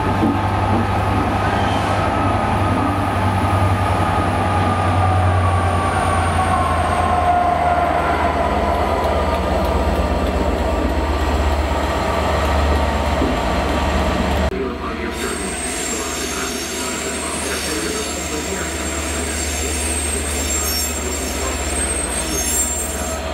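A loco-hauled passenger train with a Class 67 diesel locomotive rumbling away past the platform, with a whine that slowly falls in pitch. The low rumble drops away suddenly about two-thirds of the way in, leaving high-pitched squealing of steel wheels on the rails.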